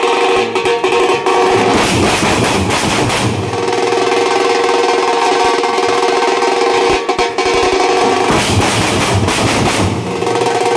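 Teenmaar street drum band playing: many large barrel drums beaten with sticks in a loud, driving rhythm, with a steady ringing tone held underneath.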